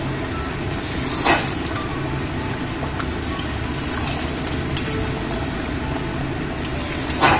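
Long metal spatula stirring and scraping thick spinach paste in a metal kadai over a steady low rumble, with two sharper scrapes against the pan, about a second in and near the end. The paste is being fried down and kept moving so it doesn't stick to the bottom and burn.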